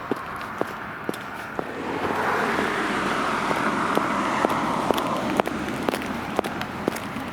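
Footsteps walking at a steady pace, about two steps a second, while a car passes in the background, swelling from about two seconds in and fading by about five and a half seconds.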